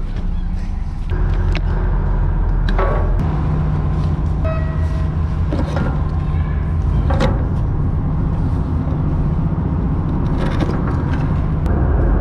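Steady low drone of a car ferry's engines, with several sharp knocks and clicks from a loaded bicycle and its bags being handled on the steel deck.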